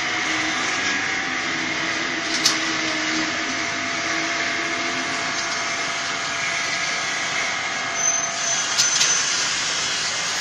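Frying machinery running with a steady mechanical hum, with a sharp click about two and a half seconds in and a few knocks near the end.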